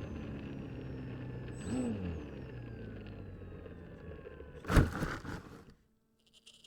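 Motor and propeller of an FPV model aircraft running with a slowly falling pitch as the throttle comes down, with a brief rise and fall about two seconds in. About five seconds in comes a loud burst of crackling noise, after which the motor sound stops abruptly.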